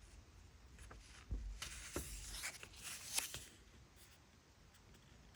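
Faint rustling of paper being handled, as of manual pages being shifted or turned, with a few light clicks, mostly in the middle seconds.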